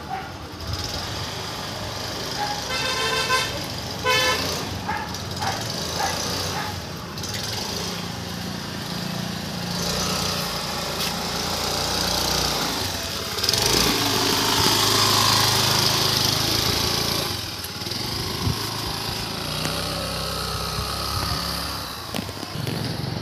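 Outdoor road traffic noise, with a vehicle horn sounding two short toots about three and four seconds in. In the middle, a louder swell of vehicle noise rises and fades over a few seconds.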